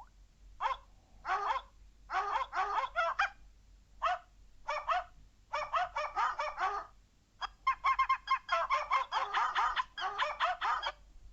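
A novelty ringtone made of short animal calls strung into quick rhythmic runs, with brief pauses between the runs.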